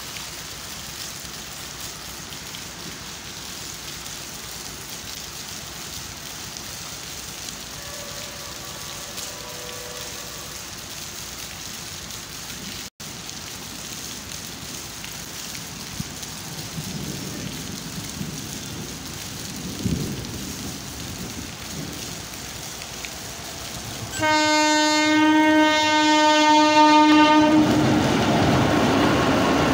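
Steady rain falling, with an approaching WAP-4 electric locomotive blowing its horn faintly about eight seconds in. The train's rumble then grows, the horn sounds loud and long for about three seconds near the end, and the locomotive and coaches rush past.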